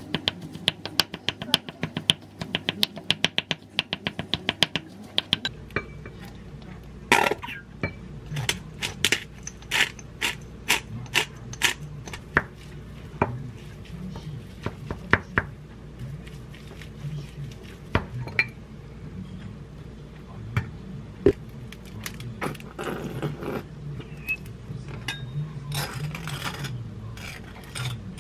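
Wooden spatula mashing boiled eggs in a glass bowl: a fast run of sharp taps against the glass for about the first five seconds, then slower scattered clinks and a few longer scrapes as crab sticks and sauce are mixed in.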